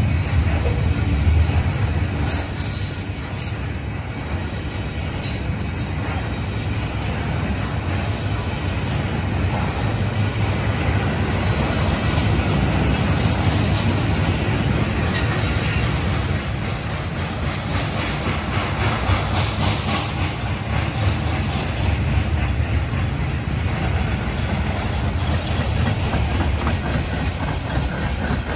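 Rail cars of a CSX welded rail train, loaded with long ribbon rail, rolling past with a steady rumble of wheels and some clacking and clanking. Partway through, a thin high wheel squeal sets in for several seconds.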